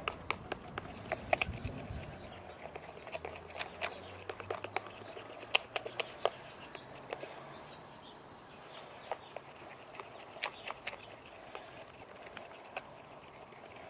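Stirring glue and glitter for slime: a utensil makes irregular clicks and taps against the container, busier in the first half and sparser later.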